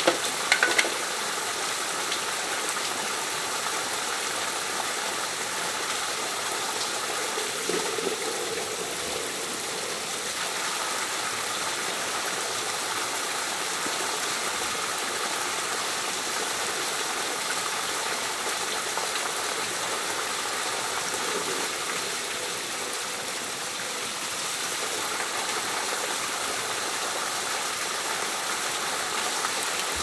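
Steady rush of running water. A few sharp knocks come just under a second in, and another around eight seconds in.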